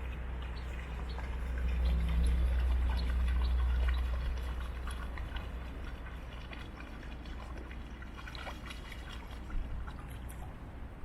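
Water trickling and splashing, with many small crackles, over a steady low rumble that is louder about two to four seconds in.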